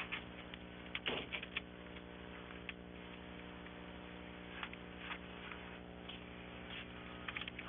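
A steady electrical hum with scattered light clicks and taps, a cluster of them about a second in and another near the end.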